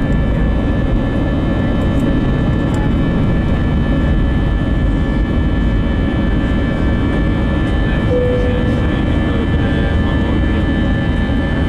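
Airbus A320's IAE V2500 turbofan engines at takeoff thrust, heard from the cabin over the wing during liftoff and initial climb. A loud, steady rumbling noise with several steady high whining tones from the engines above it.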